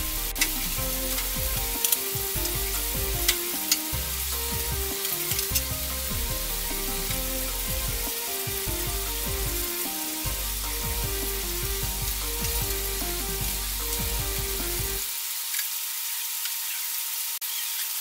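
Chicken karaage pieces deep-frying in oil in a wok on low heat: a steady, dense sizzle of many small bubbles during the slow first fry that cooks the meat through.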